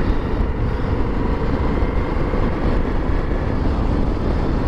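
Motorcycle cruising at road speed: steady wind rush over the camera microphone mixed with engine and tyre noise, heaviest in the low end.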